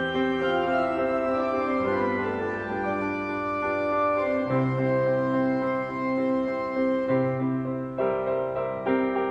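Church organ playing a slow piece in held chords that change every second or two, with a piano playing along.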